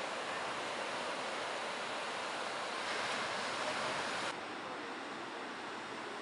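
Ocean surf at a beach break: a steady rushing wash of breaking waves and whitewater. It swells a little louder about three seconds in, then drops suddenly to a softer wash just after four seconds.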